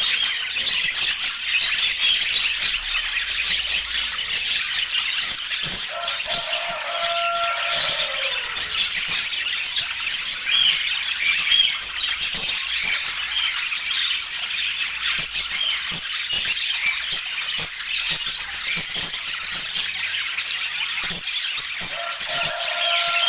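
Budgerigars chattering with dense, rapid chirps and warbles. A longer falling squawk stands out about six seconds in and again near the end.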